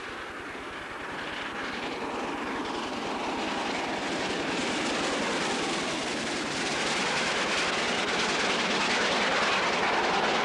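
Peppercorn A1 Pacific steam locomotive running past at speed with a fitted freight, a dense rushing noise of exhaust and wheels on rail that grows steadily louder as it approaches.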